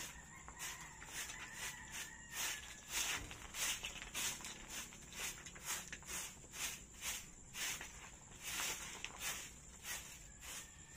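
Short hand broom sweeping a dirt floor in quick strokes, a dry swish about twice a second.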